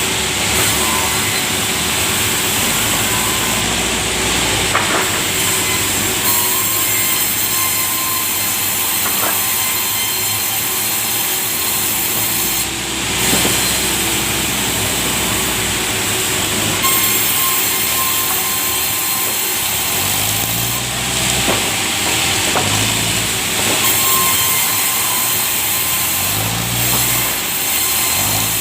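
Sawmill saw cutting through a large timber log, a loud steady whine and rasp of the blade in the wood that runs on without a break.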